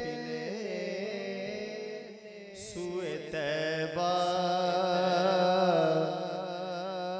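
A man singing a naat (Urdu devotional poem) unaccompanied, drawing out a long melismatic phrase over a steady low drone, with reverberation from the sound system.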